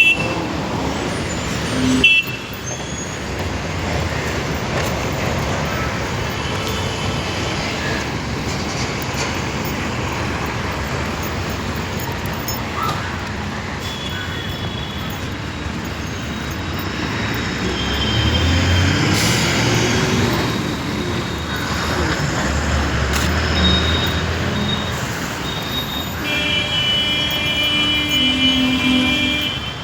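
Steady road traffic noise from passing vehicles, swelling and falling, with a held horn-like tone near the end.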